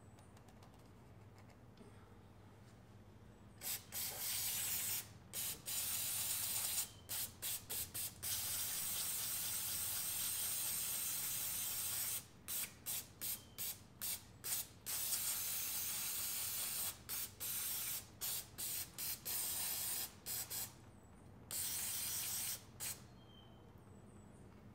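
Aerosol spray can with a straw nozzle hissing in repeated sprays. They begin a few seconds in, some held for several seconds and others in quick short bursts, and stop shortly before the end.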